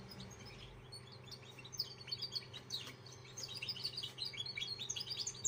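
Young caged finch, two months old and in song training, singing a rapid twittering series of short chirps. The song is sparse at first and becomes busier from about two seconds in, over a steady low hum.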